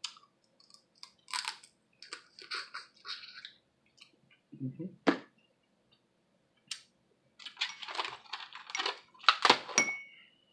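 Close-up eating sounds of snow crab: wet chewing and lip smacks with scattered sharp clicks, then a dense run of crackles and snaps in the last few seconds as a crab leg shell is broken and the meat pulled out.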